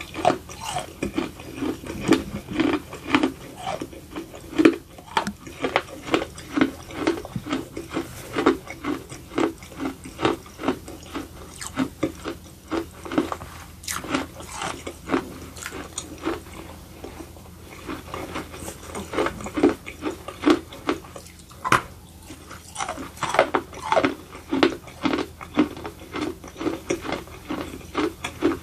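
Close-up chewing of baked edible clay: dry, gritty crunches in a steady rhythm of about two a second, with sharper cracks here and there as the clay pieces break.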